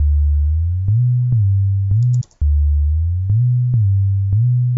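Synth bass line from FL Studio's 'JrBass' channel playing back, its low notes sliding up and down in pitch from one to the next (portamento glides), with a faint click at each new note.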